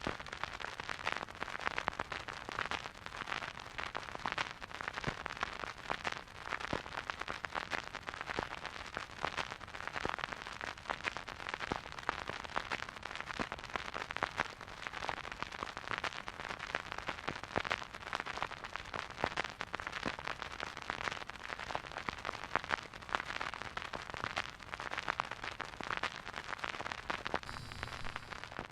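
Vinyl record's silent groove playing on a record player: dense, steady crackle and pops of surface noise from a dusty, worn record.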